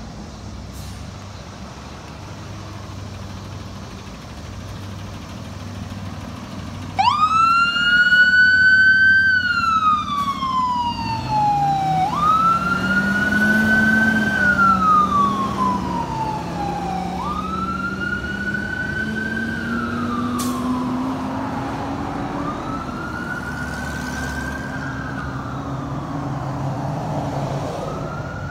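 Ambulance siren switching on abruptly about seven seconds in and wailing in slow cycles, each rising quickly and falling away over about five seconds, growing quieter as the ambulance drives off. Before the siren, and beneath it, the ambulance's engine rumbles low.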